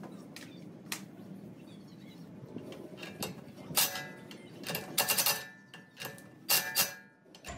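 Sharp metallic clicks and knocks of a socket and long extension on a red cordless power tool being seated and worked on a front wheel hub's axle nut, with a quick run of clicks about five seconds in, during reassembly after a wheel bearing replacement.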